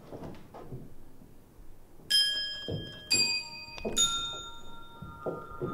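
Three bell-like metallic chimes, each a different note, struck about a second apart. Each one rings on until the next, and the last keeps ringing. Soft knocks come before and under them.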